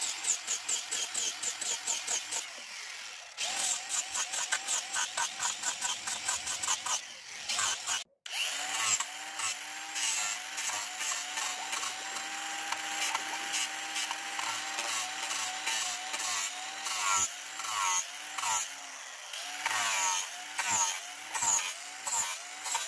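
Cordless angle grinder sanding wooden boards. The motor whines in quick rhythmic strokes, several a second, its pitch dipping each time the disc bites into the wood. The sound cuts out briefly about eight seconds in.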